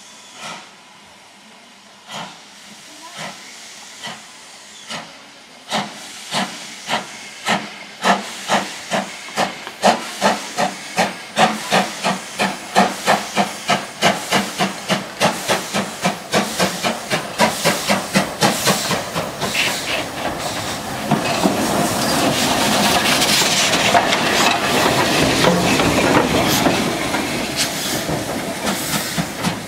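BR Standard Class 5 steam locomotive 73096 getting under way: its exhaust beats start slow and single, then quicken and grow louder to several a second as it gathers speed. About two-thirds of the way in a steady loud hiss of steam swells up over the beats as the engine comes close.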